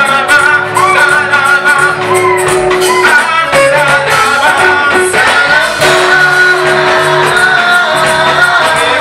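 Live church praise music: a group of singers with instrumental accompaniment.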